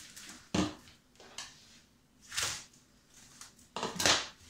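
Clear plastic film crinkling and rustling in several short bursts as it is rolled and pulled tight around a log of raw foie gras. The loudest crinkle comes near the end.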